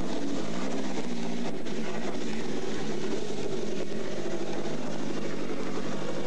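Rally car engine running at low revs as the car moves off slowly, its pitch rising and falling a little under light throttle.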